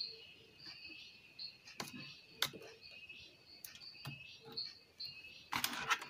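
Insects chirping steadily in a high, pulsing drone, with a few sharp clicks and knocks of a car stereo unit being handled on a bench. The loudest knock comes about two and a half seconds in, and there is a louder clatter near the end as the unit is picked up.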